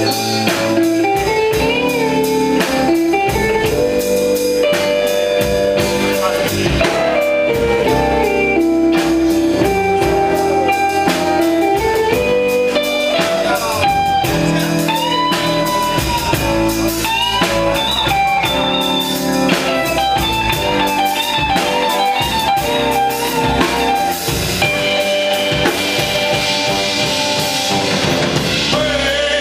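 Live band playing electric guitars over a drum kit, with a lead line that glides and bends between notes.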